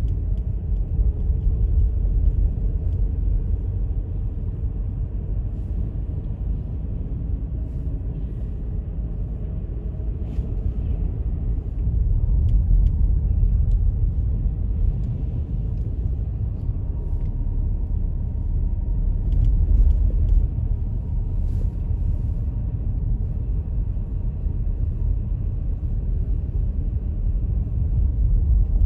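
Steady low rumble of a car driving: road and engine noise, with a few faint ticks.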